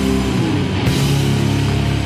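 Heavy rock music with guitar, steady and loud.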